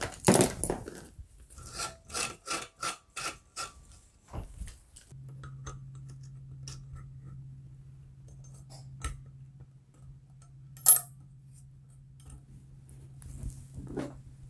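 Metal lamp hardware being handled and fitted together, the wire harp going onto its saddle over the brass socket: a sharp knock at the start, a quick run of about six ringing clicks, then scattered light taps and one louder click about eleven seconds in. A steady low hum starts about five seconds in.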